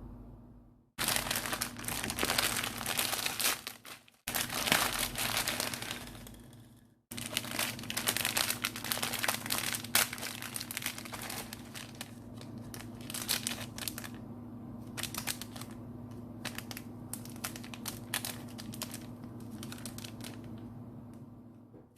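Mik-Mik candy packaging crinkling and tearing as it is handled and opened, in bursts of dense crackling. The crackling is over a faint steady hum and cuts off abruptly a few times, near the start and around four and seven seconds in.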